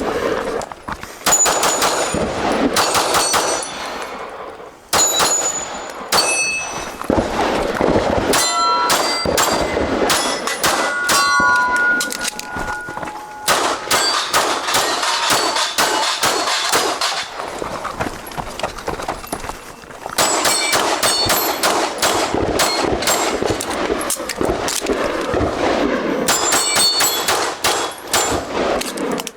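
Pistol fired in quick strings of shots, with steel targets clanging and ringing as they are hit. The strings are broken by short pauses.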